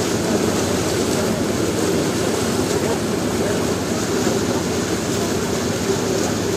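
Passenger riverboat's engine running at a steady cruising speed, a constant low drone with no change in pitch or level.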